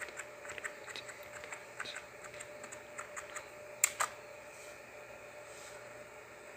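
Computer keyboard keys being typed, a quick run of light taps for about three and a half seconds, then two louder clicks close together near four seconds in.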